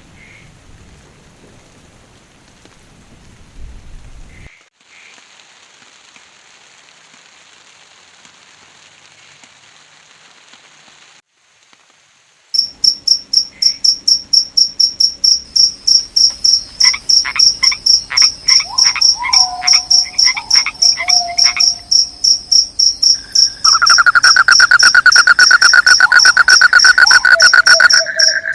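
Faint steady hiss of rain for about the first twelve seconds, broken by abrupt cuts. It then gives way to a loud night chorus of forest insects and frogs: a rapid, evenly pulsed high-pitched trill, short chirping calls a few seconds later, and a second loud pulsed call, lower in pitch, joining near the end.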